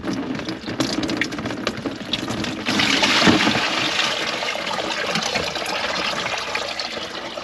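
Water running at a kitchen sink, starting with a rush about three seconds in and then running steadily, after a few light knocks and clatter.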